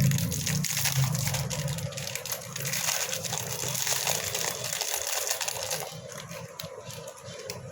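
Broken coconut biscuit pieces clicking and rustling as they are handled and scooped into a measuring cup, many small dry clicks in quick succession.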